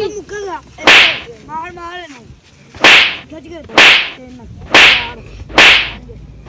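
Five loud, sharp smacks about a second apart as two boys scuffle, with children's voices between the hits.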